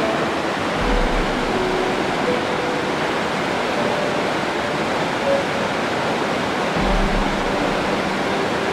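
Fast mountain river rushing over rocks: a steady, even noise of white water.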